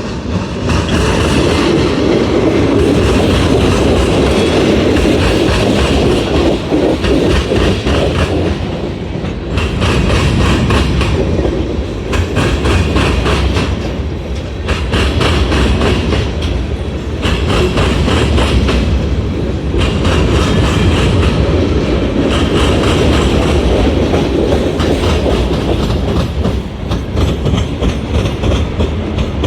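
Freight train rolling past, its wheels clattering in repeated clusters of clicks as the cars cross a railroad diamond crossing, over a steady low rumble.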